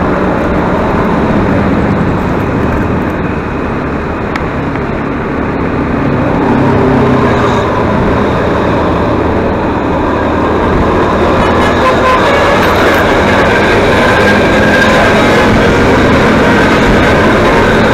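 Road vehicle on the move: a loud, steady rush of engine, tyre and wind noise, growing a little louder about six seconds in and again around eleven seconds.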